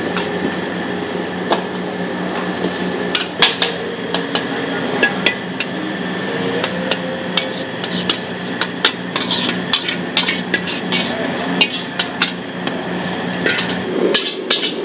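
Metal wok spatula striking and scraping a steel wok during stir-frying: many sharp, irregular clanks, thickest in the second half, over a steady hum.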